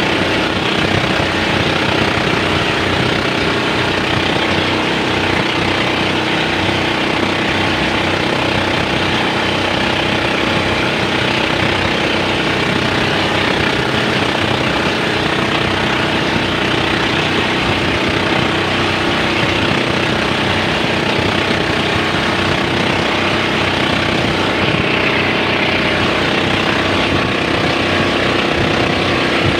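Engine of a motorized outrigger boat (bangka) running steadily while under way, a loud, even drone.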